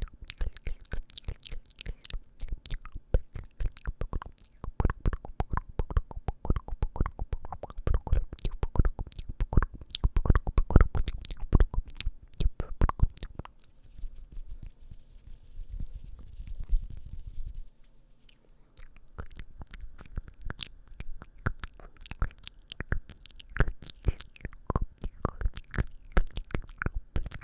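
Close-up ASMR mouth sounds: a rapid, dense run of wet clicks and smacks, softening for a few seconds about two-thirds of the way through before picking up again.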